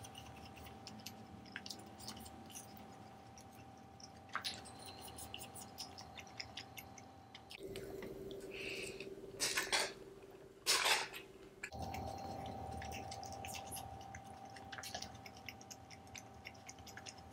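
Close-miked chewing of Schezwan paneer fried rice with raw onion slices: many small wet mouth clicks and smacks, with two louder short rasping sounds about halfway through.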